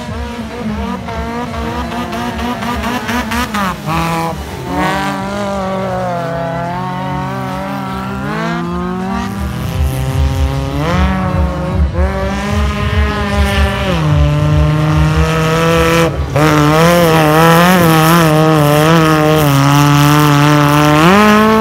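Off-road 4x4 race car engines revving hard, the pitch repeatedly climbing and falling back as the throttle is worked, growing louder in the last few seconds.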